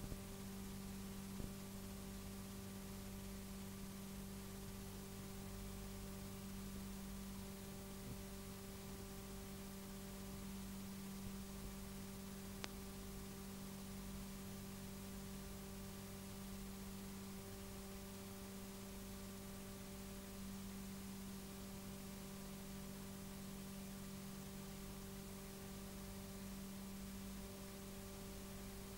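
Faint steady electrical hum with a light hiss from a VHS tape playing with no programme sound, with a couple of faint ticks.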